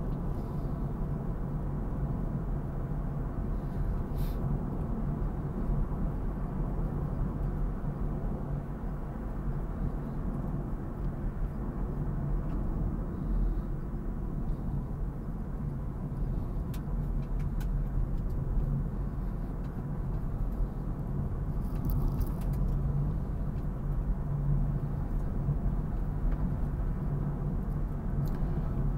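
Car cabin noise while driving: a steady low rumble of engine and tyres on the road, with a few faint clicks.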